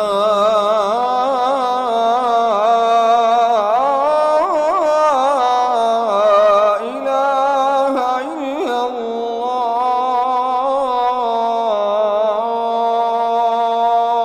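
A muezzin chanting a phrase of the adhan (Islamic call to prayer) as one long melismatic line. The voice winds through fast ornamental turns, then settles into a long held note in the second half.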